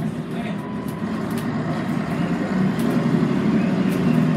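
Scania N113CRB city bus heard from inside the cabin while under way: its rear-mounted 11-litre six-cylinder diesel running with a steady low hum, getting a little louder about two and a half seconds in, with occasional short rattles.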